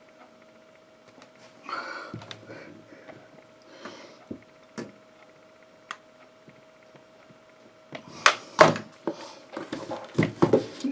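A series of clicks, knocks and rustles, like objects being handled, sparse at first and louder and more frequent in the last few seconds, over a faint steady hum.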